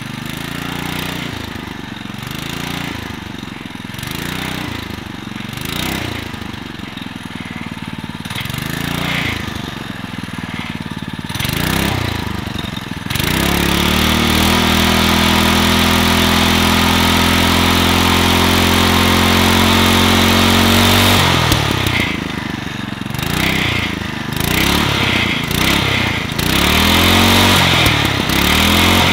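Honda GX200 single-cylinder four-stroke engine revved in short repeated blips for about ten seconds. It is then held at high, steady revs for about eight seconds, and drops back to idle with more blips near the end.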